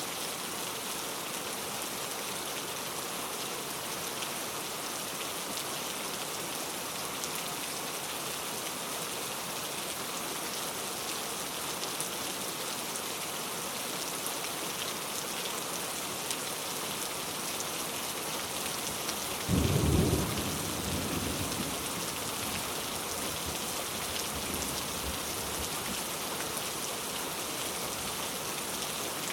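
Steady rain falling. About twenty seconds in, a brief low rumble rises above the rain and fades over a couple of seconds.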